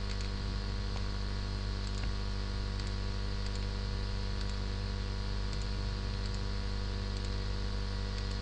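Steady electrical mains hum with a hiss, broken by faint, scattered clicks of a computer mouse as on-screen keyboard keys are pressed.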